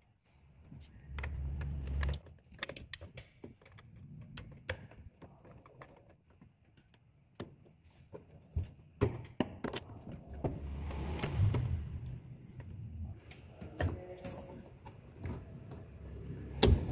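Scattered clicks, taps and light knocks of a Toyota All New Rush throttle body being worked into place by hand on the engine's intake, with stretches of low rubbing noise as hands and parts brush against the hoses.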